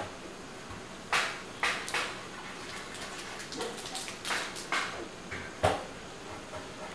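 Coconut milk simmering in a pan: a steady soft hiss with several sharp pops as bubbles burst now and then.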